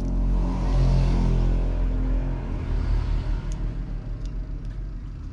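A low engine rumble that swells about a second in and then slowly fades, with a few faint ticks over it.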